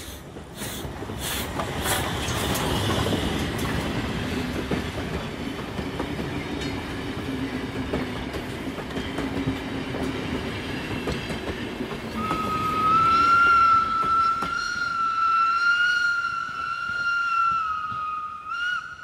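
A train running on rails: a few sharp knocks in the first two seconds, then a steady rumble. About twelve seconds in, a long high tone joins and holds, wavering slightly, to the end.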